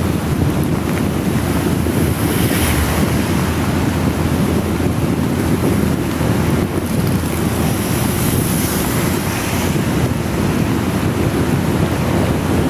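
Wind buffeting the microphone on a moving motorcycle in heavy rain: a loud, steady low rumble with the hiss of rain over it, swelling briefly twice.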